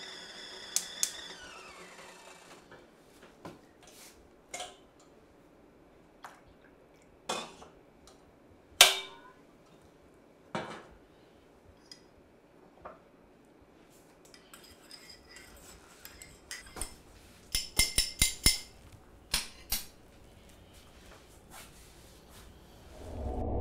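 Kitchenware being handled: scattered clinks and knocks of a metal kettle on a gas stove and dishes being set down, with a quick run of clinks about three-quarters of the way through.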